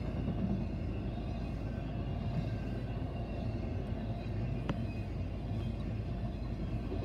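Double-stack intermodal freight train rolling past at close range: steady rumble of wheels on rail, with faint steady high-pitched squeal tones and a single sharp click about two-thirds of the way through.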